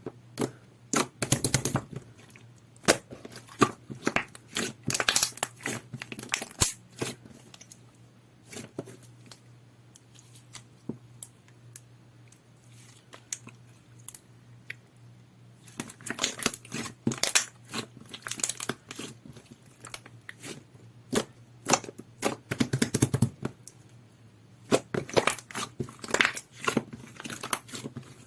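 Clear soothing-gel slime being squished and stretched by hand: dense runs of sticky, wet clicks and pops. They thin out to sparse clicks for several seconds in the middle, then pick up again.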